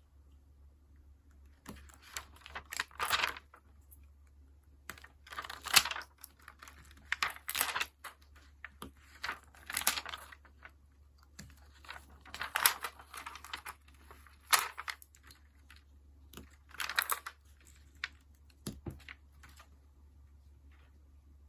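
Stickers being peeled from their backing and pressed down onto paper, with paper rustling and light tapping. The sounds come as short scratchy bursts every second or two, a few of them drawn out.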